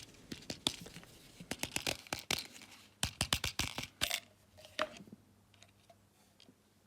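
Packaging being torn and crinkled open by hand: a quick run of crackles and rustles that dies away about five seconds in, leaving only a few faint ticks.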